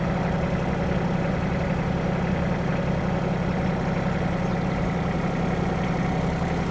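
Engine running steadily at idle, a low, even hum with no change in pitch.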